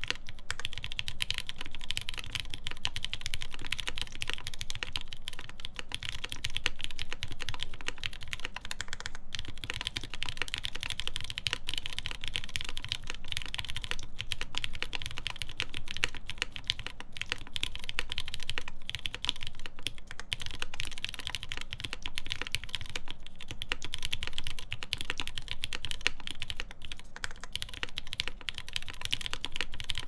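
Steady, unbroken typing on a gaff.60 HHKB-layout custom mechanical keyboard: lubed linear switches (Cherry MX Black housings with 415Keys UHMWPE stems) on a full aluminum plate, with GMK Denim keycaps and shelf-liner dampening in the case, giving a dense run of keystroke clacks.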